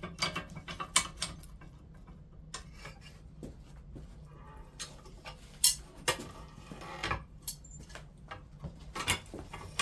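Irregular metallic clanks and clinks of steel bar stock being worked in a hand-operated bending machine, the loudest clank about six seconds in.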